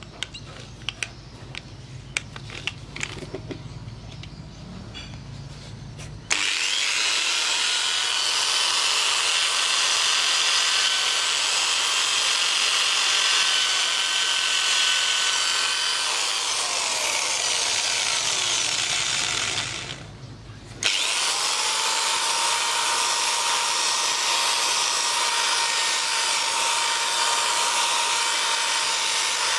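Electric drill spinning a wire cup brush against a rusty motorcycle exhaust pipe to strip the rust: a steady high whine with a scratchy hiss. A few light clicks come before the drill starts about six seconds in. It stops for about a second about two-thirds of the way through, then runs again at a lower pitch.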